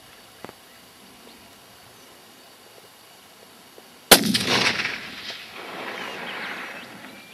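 A single hunting rifle shot about four seconds in, followed by a long rolling echo that swells again and fades over about three seconds.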